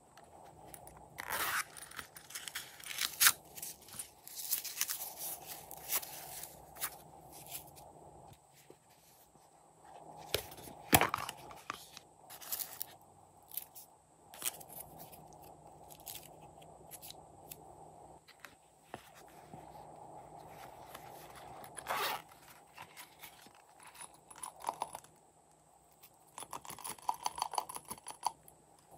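Small plastic toy containers being handled and their lids opened, with sequins, glitter and foam shapes shaken out into trays of white glue: scattered clicks, rattles and rustling, with a few sharp snaps.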